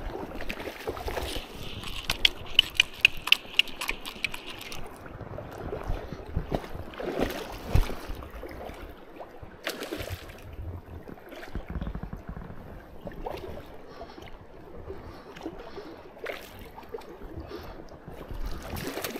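Water sloshing and splashing with scattered knocks. About a second in, a quick run of sharp high clicks lasts some three to four seconds.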